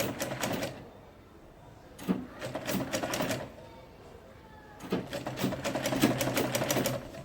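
Black-head domestic sewing machine stitching in short runs, its needle strokes rattling rapidly over a steady hum. One run ends just after the start, then two more follow, about a second and a half and about two seconds long, with pauses between. The machine is sewing an invisible zipper in with an invisible-zipper foot.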